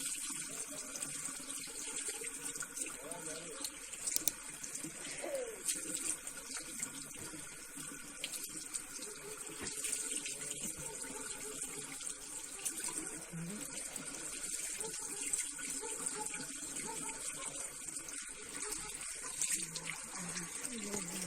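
Water running steadily, as from a tap into a sink.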